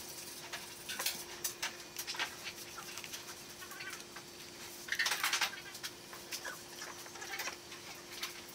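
Short animal calls in the background, heard several times, the loudest a cluster about five seconds in, over a faint steady hum.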